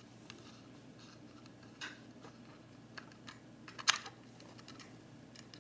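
Faint, scattered small clicks and ticks of a small screwdriver turning out the tiny M.2 fastener screw on an SSD enclosure's circuit board, with a sharper click about four seconds in.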